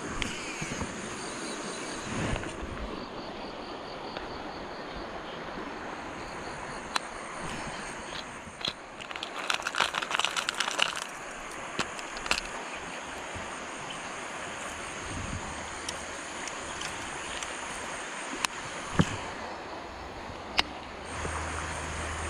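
Steady outdoor background with insects buzzing in high, evenly pulsing tones. Scattered sharp clicks throughout, with a spell of quick rattling clicks about nine to eleven seconds in.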